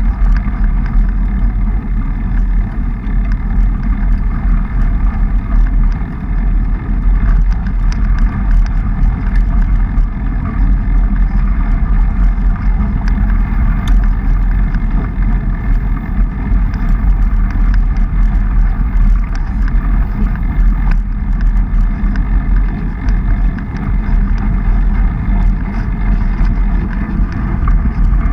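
Steady rumble of wind buffeting and trail noise on a GoPro HERO3 riding along on a mountain bike over a dirt trail, with scattered small clicks and rattles from the bike and gravel.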